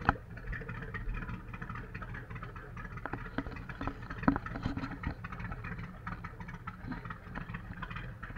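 Motorboat engine running steadily with a low hum, under scattered sharp knocks and rattles, the loudest about four seconds in.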